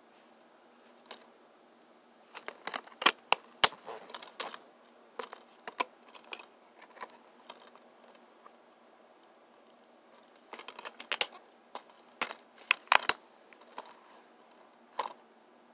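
Plastic multi-disc DVD case being handled: sharp clicks and rattles as its hinged clear disc tray is flipped over and the case is closed, in two bursts with a last click near the end.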